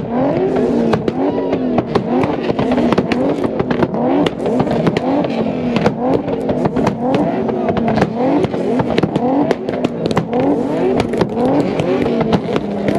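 Several performance car engines revved hard over and over, the pitch rising and falling about once a second, with sharp exhaust pops and crackles throughout as the tuned exhausts backfire.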